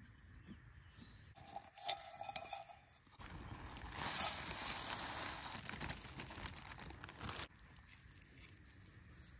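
Rolled oats poured from a plastic zip-top bag into a metal camp mug: a dense rustling, crinkling pour of about four seconds, starting about three seconds in. A couple of sharp clicks come a little before it.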